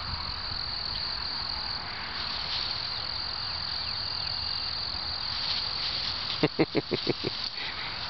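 Steady, high-pitched chorus of insects. About two-thirds of the way through comes a quick run of about six short, louder knocks.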